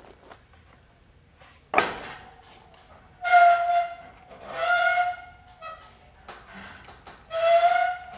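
A sharp knock as a hanging fidget-spinner obstacle is grabbed, then three squeals, each well under a second, from the spinner wheels turning under the climber's weight as he swings across.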